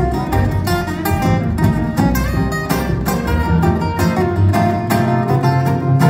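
Two guitars and an upright double bass playing an instrumental passage live: quick picked guitar notes over a low bass line.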